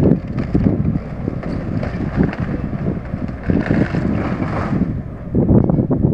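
Wind buffeting the microphone in irregular gusts over a low rumble, with a few scattered knocks; a rush of hiss rises and fades about three and a half seconds in.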